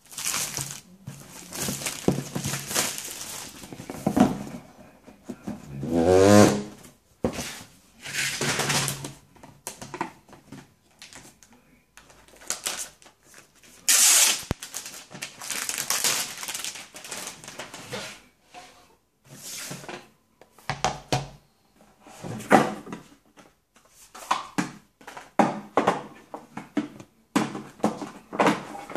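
Packaging being handled quickly during a laptop unboxing: plastic shrink-wrap and film crinkling and tearing, box parts and items knocking on a hard tabletop, in quick irregular bursts. A brief wavering squeak sounds about six seconds in.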